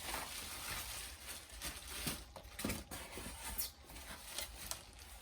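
Packaging being handled during unboxing: a steady rustling and crinkling with many small clicks and knocks as the vacuum's parts are taken out.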